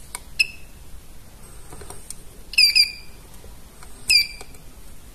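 Continuity buzzer of a Sunshine DT-9205E digital multimeter giving short high beeps as its probes touch an electrolytic capacitor on a router board: one about half a second in, two close together near the middle and one just after four seconds, with faint probe clicks between. Each chirp stops at once, as a capacitor that charges rather than shorts does, and the capacitor checks out as safe.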